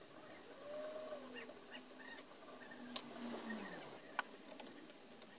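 Faint animal calls: a drawn-out call that rises and falls in pitch about a second in, and a lower call that falls away in the middle. Two sharp tool clicks come about three and four seconds in.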